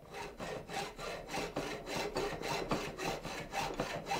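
Hand hacksaw cutting through an antler clamped in a vise, in quick, even back-and-forth strokes that start right away and keep going.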